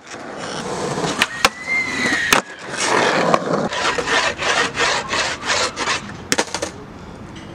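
Skateboard wheels rolling on concrete, with sharp clacks of the wooden board hitting the ground several times and a brief squeal about one and a half seconds in. The rolling fades near the end.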